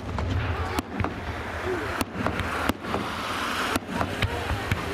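Aerial fireworks shells bursting, several sharp bangs about a second apart over a steady rushing background noise.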